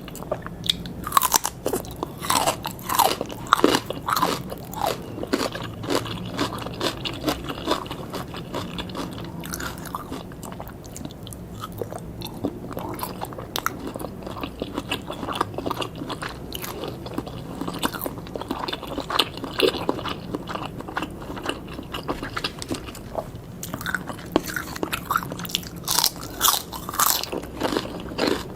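Close-miked eating sounds: bites and chewing of grilled pork and red sausage skewers, with crisp crunches and wet chewing. The bites come thickest in the first few seconds and again near the end, with softer chewing between.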